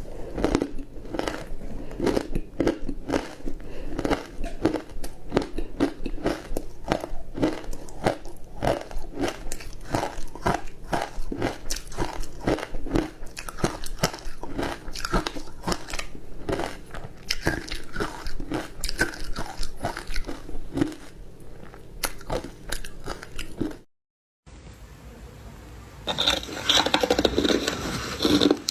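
A person crunching and chewing ice coated in matcha green tea powder, with rapid crunches several times a second. The sound drops out briefly near the end, then the crunching picks up again.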